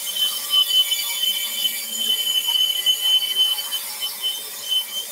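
Bandsaw with a quarter-inch 6 TPI blade cutting a slow continuous curve through a softwood board: a steady high-pitched whine over the hiss of the cut.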